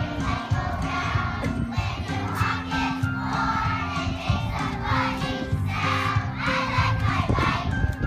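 A choir of young children singing together over an instrumental accompaniment, with a steady, stepping melody.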